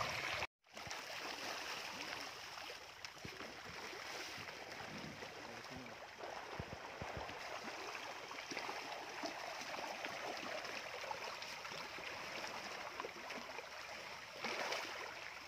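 Fish in a floating net cage splashing and churning at the water surface as they take floating feed pellets: a steady wash of small splashes, broken by a brief cut to silence about half a second in and a little louder near the end.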